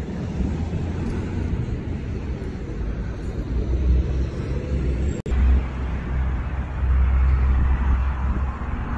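Wind buffeting the microphone of a phone carried while running, a steady uneven low rumble with a haze of outdoor noise. The sound cuts out for an instant about five seconds in.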